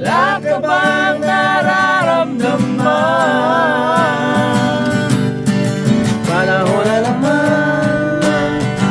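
Acoustic guitar strummed steadily while a man sings along in long held notes with vibrato.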